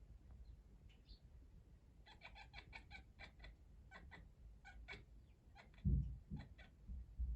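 A cat chattering: quick runs of short, clipped 'kya-kya-kya' calls in two bursts, the excited chatter of a cat watching sparrows it seems to be stalking. A loud low thump comes about six seconds in and again near the end.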